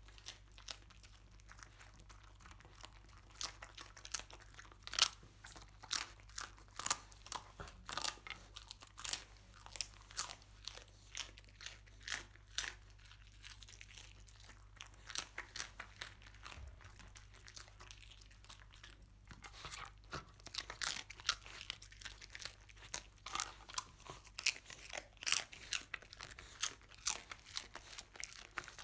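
A dog crunching and chewing hard scorched-rice crust (nurungji): a fast, irregular run of sharp crunches, with a couple of short lulls midway.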